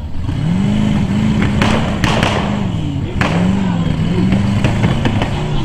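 Rock bouncer buggy's engine revving up and down repeatedly as it climbs a rocky hill, with several sharp cracks between about a second and a half and three seconds in.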